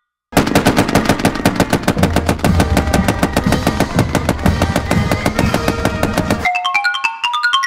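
Rapid automatic gunfire sound effect, many shots a second, mixed with music, cutting off suddenly after about six seconds. A short xylophone-like jingle of bright stepping notes follows near the end.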